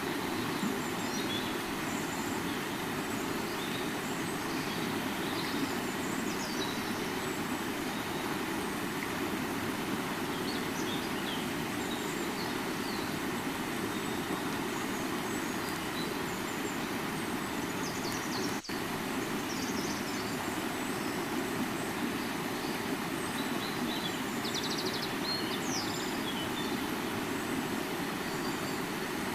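A river flowing steadily, a continuous low rush of water, with faint bird chirps here and there above it.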